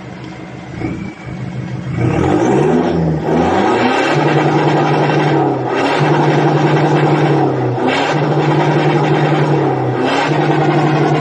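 Toyota Hiace's 2KD 2.5-litre four-cylinder turbodiesel revved through a newly fitted exhaust resonator and tips. The revs climb about two seconds in, then are held up and let drop briefly, four times in a row, about every two seconds.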